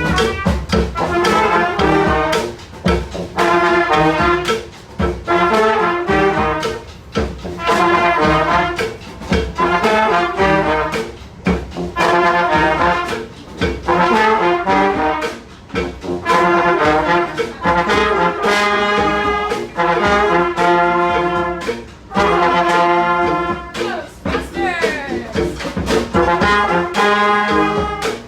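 Brass street band playing a tune, trombones and trumpets together in short repeated phrases.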